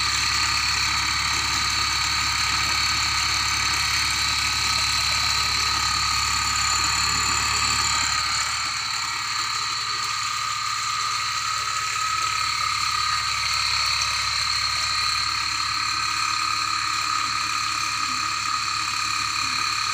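A homemade 24-volt DC water pump running off a battery, with a steady low hum that drops away about eight seconds in. Steady high-pitched tones carry on throughout.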